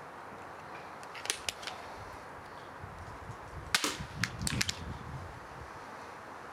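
Air pistol firing: one sharp crack near the middle, the loudest sound, with a few lighter clicks before and after it.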